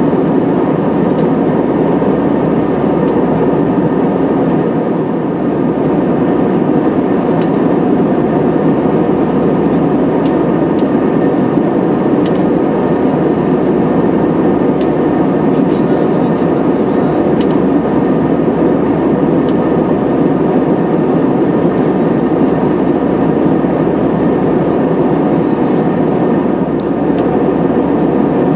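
Steady cabin drone of an Airbus A320-214 in flight, the hum of its CFM56 turbofan engines heard from inside the cabin at a window seat.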